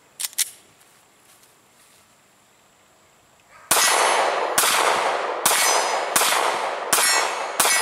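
Glock 43 9mm subcompact pistol firing six shots, one roughly every 0.8 seconds, each with a long echoing tail. Two sharp clicks come about a third of a second in.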